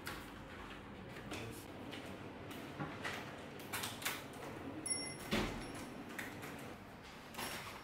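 Kitchen work sounds: scattered clicks and knocks of utensils and containers being handled over a steady background hum, with a brief high ring about five seconds in.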